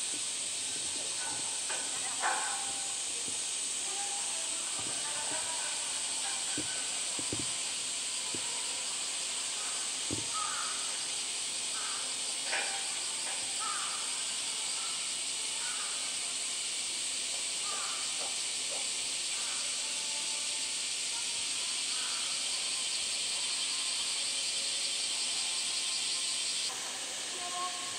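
Steady high-pitched drone of a summer cicada chorus, with faint short calls scattered through it and a few soft knocks.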